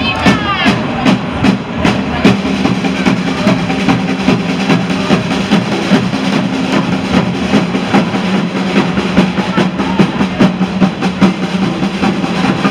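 A marching parade drum group, snare drums and bass drum, playing a fast, steady rhythm with rolls. Under it runs a steady low hum.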